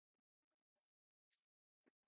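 Near silence, with two very faint clicks about half a second apart.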